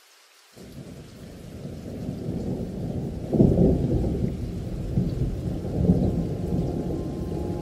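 Wind buffeting the microphone: a low, gusting rumble that starts suddenly about half a second in, swells, and is loudest a little past three seconds, with smaller gusts after.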